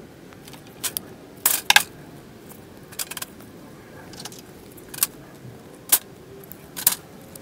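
Rubber fuel hose being cut to length with hand cutters: a series of short, sharp clicks and snips, the loudest pair about one and a half seconds in, followed by scattered clicks of the metal tool and hose being handled.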